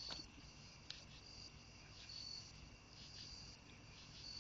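Faint crickets chirping in repeated high trills, with a couple of faint clicks.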